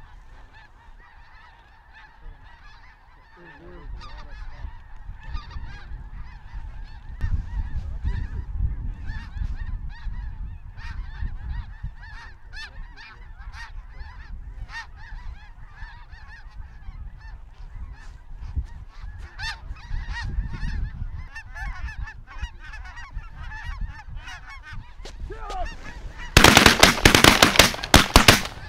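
A large flock of snow geese calling overhead: a constant din of many overlapping high-pitched honks. Near the end comes a quick volley of loud shotgun blasts.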